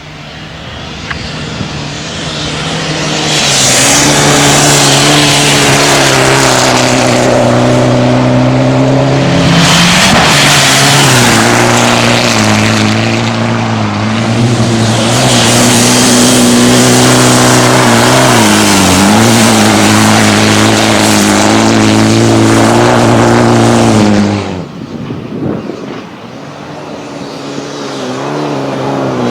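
Rally prototype car's engine running hard at high revs. It builds up over the first few seconds and holds loud, with brief dips in pitch about ten and nineteen seconds in. It drops off sharply about twenty-four seconds in, then builds again near the end.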